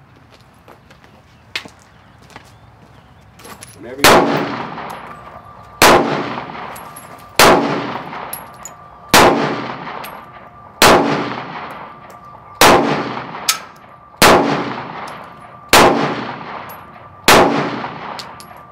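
Semi-automatic pistol firing nine shots at a steady pace, one about every second and a half to two seconds, starting about four seconds in. Each shot is followed by an echo that dies away under the metal canopy roof.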